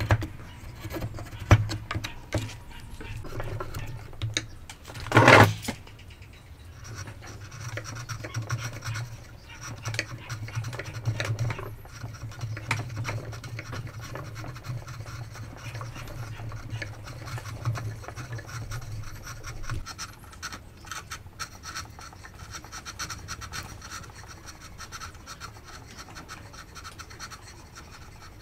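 Steel chisel paring across the wood of a tenon by hand, with repeated scraping strokes as shavings come off. A few sharp knocks come in the first couple of seconds, and one loud scraping stroke about five seconds in.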